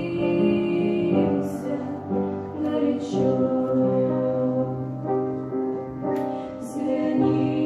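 A Christian song being sung, with long held notes over a steady accompaniment.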